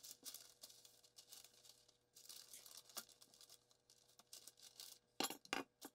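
Very faint rustling of baking parchment and soft dough as yeast dough is unrolled off a wooden rolling pin onto a lined baking tray, with a few soft knocks and two slightly louder rustles near the end.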